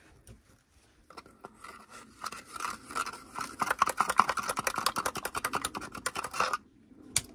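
Plastic condensate trap of a Worcester Greenstar combi boiler being twisted apart by hand: a rapid run of plastic scraping and clicking that starts about a second in, grows louder and stops abruptly near the end, followed by one more click.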